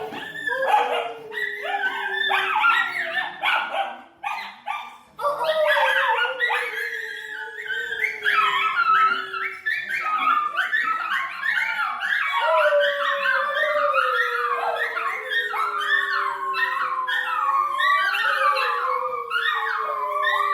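Several dogs howling together, long slowly falling howls overlapped by a tangle of higher yips and whines, with a short break about four seconds in.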